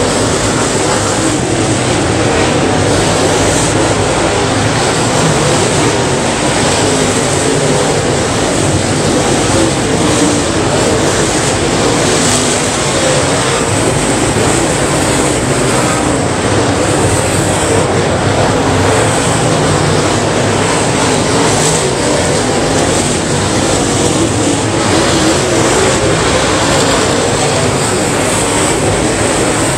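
A field of dirt late model race cars running laps together, their engines giving a loud, steady, unbroken drone.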